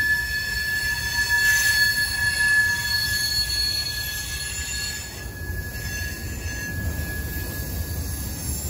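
Freight train cars rolling past, their steel wheels squealing against the rails in a steady high-pitched squeal over a low rumble. The squeal eases about five seconds in.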